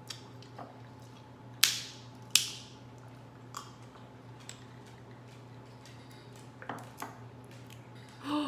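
Seafood shells being cracked and handled while eating: two sharp cracks about a second apart, then a few lighter clicks, over a steady low hum.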